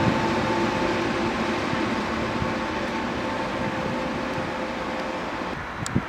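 A train running past, its rolling noise with a steady whine slowly fading away, and a sharp click near the end.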